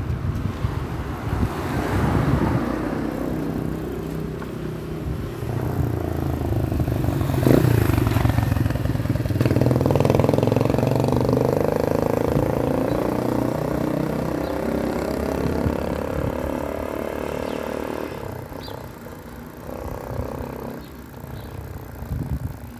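Motorcycle engine running on the move, with wind on the microphone; the engine note shifts up and down as it rides, and there is a single sharp knock about seven and a half seconds in.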